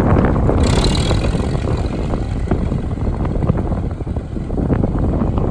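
Farmall Super MTA tractor's four-cylinder engine running steadily as the tractor drives off at low speed, with a brief hiss about half a second in.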